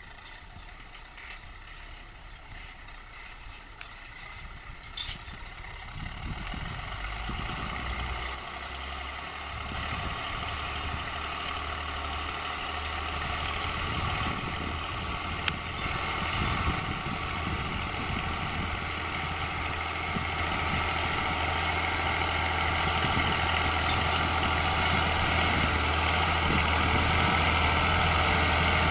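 Fiatagri 100/90 DT tractor's six-cylinder diesel running steadily under load while pulling a disc harrow, growing steadily louder.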